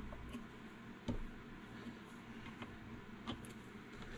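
A handful of light clicks and taps as wire clips are pushed down into the slots of a cannonball sinker mold with a screwdriver, the clearest about a second in.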